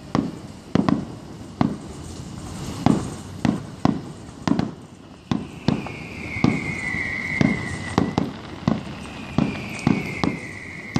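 Aerial fireworks bursting: an irregular string of sharp bangs and pops, often two or more a second. A high whistle falls slowly in pitch twice in the second half.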